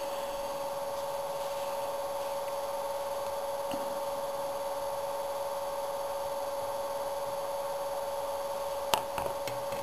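Steady background hum with a faint hiss, and a few faint clicks near the end.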